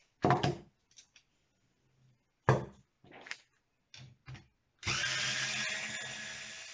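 Handheld cordless power driver working on the spoke nipples of a bicycle wheel rim, backing them off so the spokes can come out. A few short knocks and brief bursts come first, then the motor runs steadily from about five seconds in, its whine sinking slightly and fading away.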